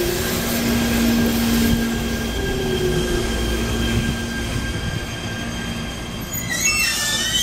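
JR E127 series electric train running, with a steady motor whine over the rumble of the wheels. About six and a half seconds in, a high wavering squeal from the wheels sets in.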